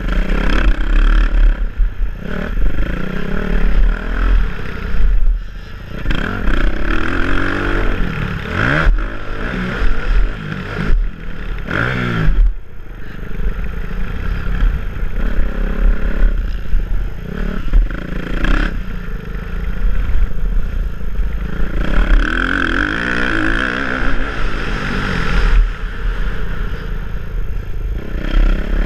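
Motocross bike engine racing around a dirt track, its pitch climbing and dropping over and over as the throttle is opened and chopped through jumps and corners. The sound is heard from a helmet camera, with a heavy low rumble of wind buffeting the microphone.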